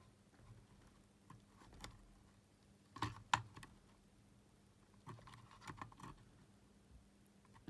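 Light clicks and taps of a multimeter and its probes being handled against small battery cells, with a louder cluster of clicks about three seconds in and another group a couple of seconds later.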